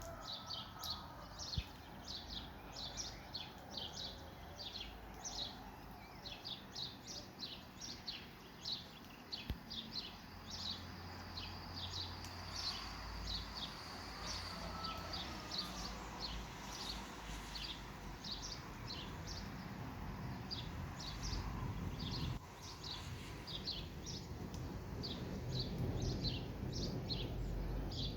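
Birds chirping over and over in short, high notes, a few a second. Under them is a low rumble that grows louder near the end.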